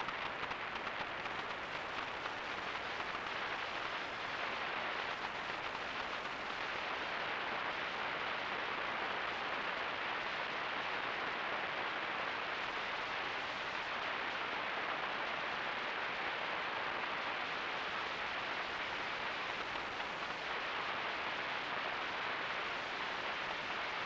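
Steady, even hiss with no distinct events.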